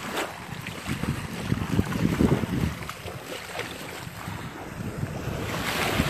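Wind buffeting the microphone in uneven gusts, strongest about two seconds in, over small Gulf of Mexico waves lapping at the shoreline, with a brighter wash swelling near the end.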